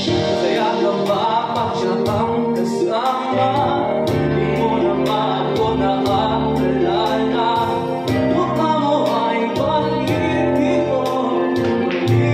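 A man singing into a handheld microphone over backing music, with sustained bass notes and a steady beat of about two ticks a second.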